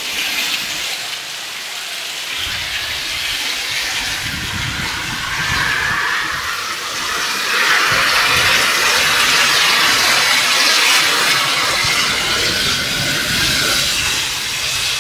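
Heavy tropical downpour: a steady rush of rain pouring onto paving and tiled roofs and streaming off the eaves, getting louder about halfway through.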